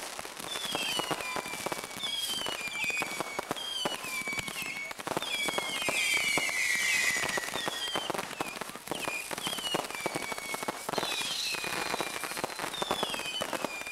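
Fireworks display: a dense crackle of sparks over a run of short whistling tones, one every second or so, each sliding down in pitch. A longer, louder whistle comes about six seconds in.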